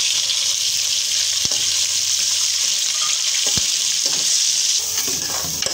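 Raw minced meat sizzling in hot oil and browned onions as it goes into a metal pot, with a steel ladle stirring and knocking against the pot a few times. The sizzle eases a little near the end.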